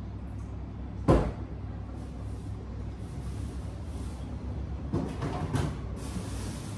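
Items being handled in an open refrigerator: one sharp knock about a second in, then a short cluster of knocks and rattles around five seconds in, over a steady low hum.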